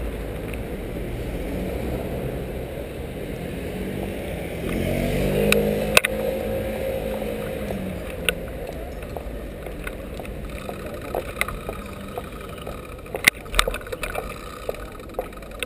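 City traffic and a low rumble of wind and road noise, picked up by a camera on a moving bicycle. A vehicle's engine rises in pitch and passes about five seconds in, and there are a few sharp clicks.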